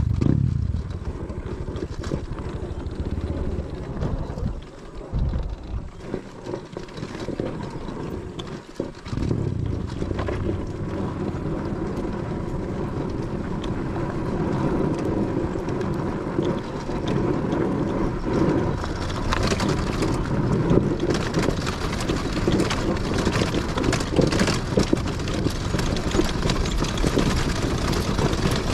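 Kawasaki KLX140G dirt bike's single-cylinder four-stroke engine running under way, with wind noise on the microphone. The sound drops away briefly twice, about five and nine seconds in.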